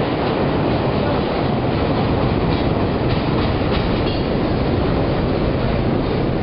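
CTA 'L' train pulling into an elevated station: a loud, steady rumble of steel wheels on the rails, with a few clacks over the rail joints a few seconds in.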